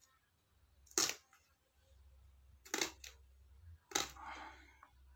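A knife chopping betel leaves, three sharp chops spaced a second or two apart, with a short softer rustle just after the last.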